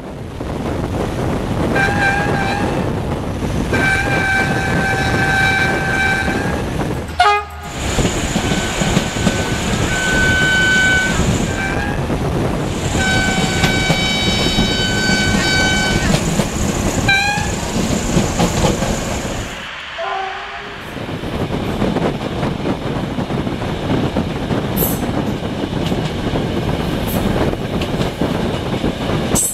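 Several blasts of diesel train horns, each blast a chord of steady tones: a short toot, then a long blast about four seconds in, a string of blasts around ten seconds and another long one around fourteen seconds. Underneath runs the steady rumble of a train on the rails. After about twenty seconds the horns stop and only the train running remains.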